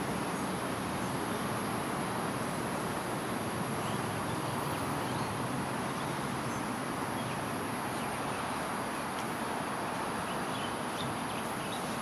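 Steady urban-park ambience: a constant hum of distant road traffic, a steady high insect drone, and a few faint short bird chirps about four seconds in and again near the end.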